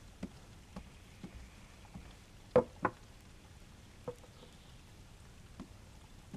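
Soft footsteps, then a tray and a porcelain bowl set down on a wooden table with two sharp knocks about two and a half seconds in, followed by a lighter ringing clink of the bowl a little later.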